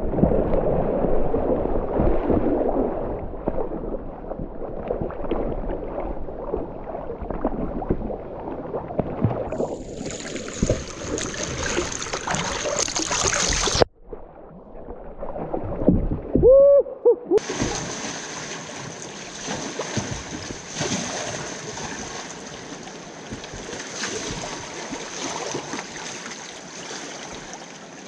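River water splashing and gurgling around a whitewater kayak and its paddle strokes, heard close up from a camera mounted on the boat. Partway through there is a brief shout from the paddler.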